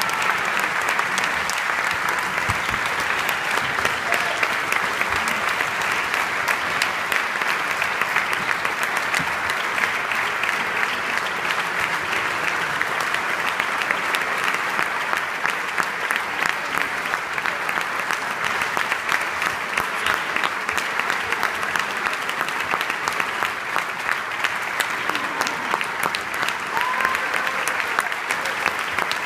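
Concert audience applauding, a steady dense mass of clapping.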